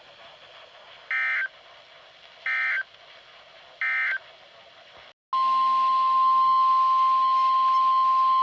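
NOAA Weather Radio alert signal: three short bursts of SAME data tones about a second and a half apart, then, about five seconds in, the steady 1050 Hz warning alarm tone starts over radio hiss. It signals that a new warning is about to be broadcast.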